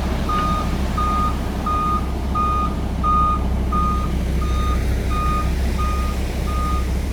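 Concrete mixer truck's reversing alarm beeping steadily, about one and a half beeps a second, over the truck's engine running.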